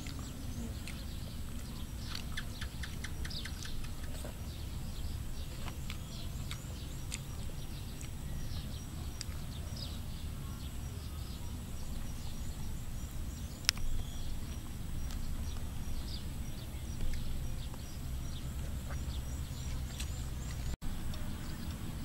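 Outdoor ambience: birds chirping faintly over a steady low rumble, with one sharp click about two-thirds of the way through.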